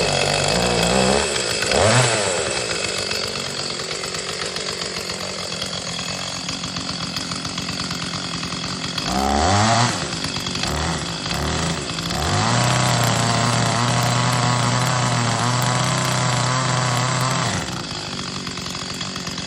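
Two-stroke petrol chainsaw running: revved up briefly twice, idling in between, then held at steady high throttle for about five seconds before dropping back to idle near the end.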